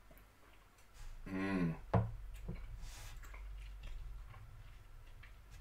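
A person tasting whisky: a short voiced 'mmm' falling in pitch, then a sharp knock about two seconds in, and a breathy exhale. Small mouth and lip clicks follow as the dram is savoured.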